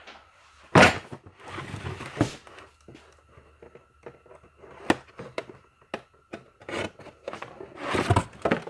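Irregular knocks, clanks and rustling of objects being handled in a garage, loudest about a second in and again near the end, over a faint steady high whine.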